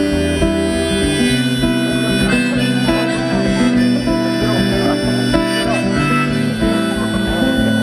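Live acoustic guitar strumming under a harmonica playing a melody of held notes, an instrumental break between sung verses.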